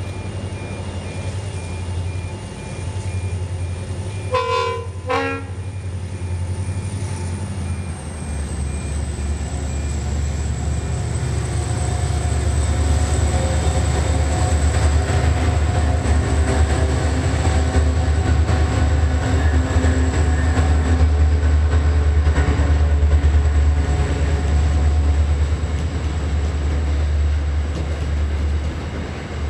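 Two C-class diesel-electric locomotives hauling a container freight train. The horn gives two short blasts about four seconds in. The engines' deep rumble then builds and peaks as the locomotives pass, and eases into the rolling of the container wagons near the end.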